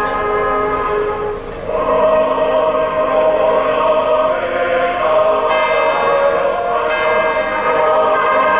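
Church bells ringing, then choral music with orchestra swells in about two seconds in and carries on steadily.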